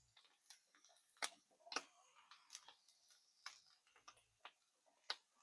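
Faint, irregular knife taps and clicks while kielbasa is sliced.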